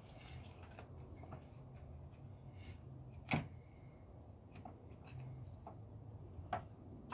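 A handful of faint clicks and knocks from hand tools working at a car windshield during removal, the clearest about three seconds in, over a low steady rumble.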